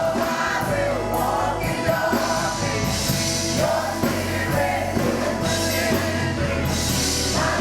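Gospel praise music: singers carrying a sustained worship refrain over a live band with bass, keyboard and drums.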